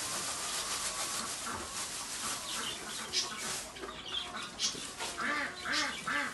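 Pig rummaging in fresh straw bedding, a dry rustling and crackling. Near the end comes a run of about five short animal calls, roughly a third of a second apart.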